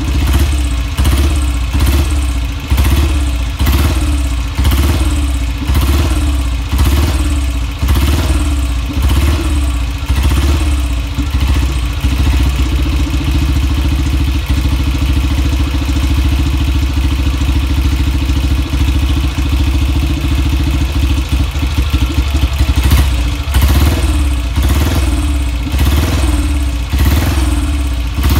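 BSA Gold Star DB32's 350 cc single-cylinder pushrod engine running just after its first start in years. At first it surges and eases about once a second, then runs steadier, and the surging comes back near the end.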